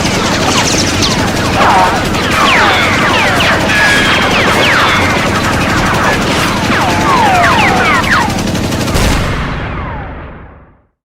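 M60 machine gun (7.62 mm) firing in sustained automatic fire, dense and continuous, with many short falling whines over the shots. The firing stops about nine seconds in and the sound fades out over the next two seconds.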